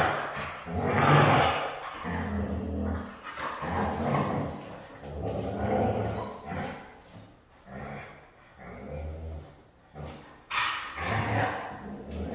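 Siberian husky and puppy growling in rough play: a run of irregular low growls and grumbles, louder about a second in and again near the end.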